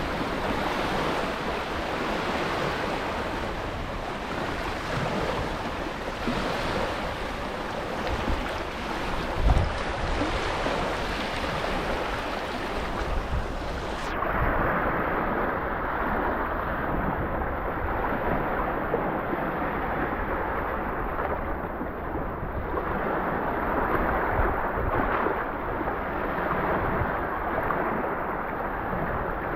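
Sea waves washing onto a sand beach, a steady rush that swells and ebbs, with wind buffeting the microphone. About halfway through the sound changes abruptly and turns duller, losing its hiss.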